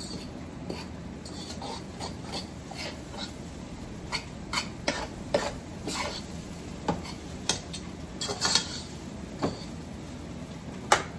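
A fork clinking and scraping against the side of a cooking pot as chow mein noodles are stirred and tossed: irregular light clicks and scrapes, the sharpest one near the end.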